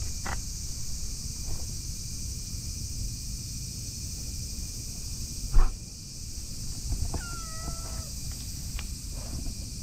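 A cat gives one short meow about seven seconds in, over wind rumble on the microphone and a steady high hiss. There is a single knock about five and a half seconds in.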